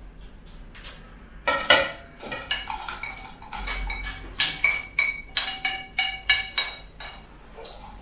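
Chopsticks clinking and scraping against a ceramic plate as shredded cabbage, carrot and onion are pushed off it into a mixing bowl: a series of short, ringing clinks, coming faster after about a second and a half.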